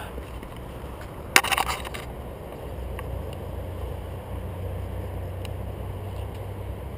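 Wind rumbling on an action camera's microphone, with a short, loud crunching rattle about a second and a half in.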